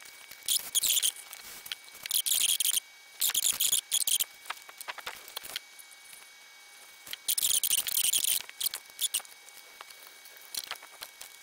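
Short bursts of light metallic clicking and rattling, several in a row with pauses between, from small screws being dropped into the bottom cover of a BB-filled weight shell and driven in with a screwdriver.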